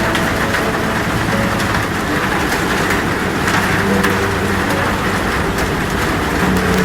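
Heavy rain falling steadily: a dense, even hiss with many sharp individual drop hits scattered through it.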